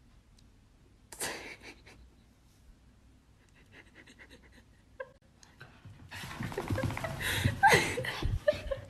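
Small dog panting and breathing, faint at first and growing louder about six seconds in as it comes close to the microphone.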